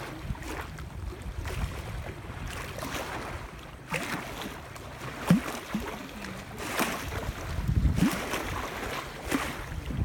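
Small wind-driven waves lapping and splashing against a lakeshore bank, in irregular washes every second or so. Wind buffets the microphone with a deep rumble.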